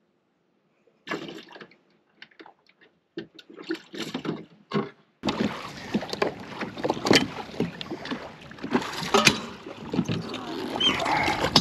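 Scattered knocks and clatter from handling gear in a small fishing boat. From about five seconds in, a steady rush of wind and lapping water carries on, with frequent knocks against the boat.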